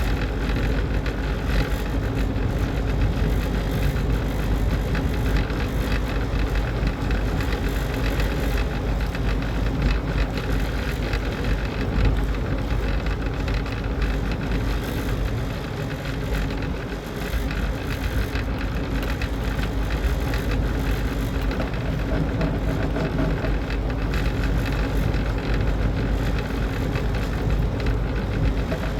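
Steady mechanical running noise with a low hum, unchanging throughout.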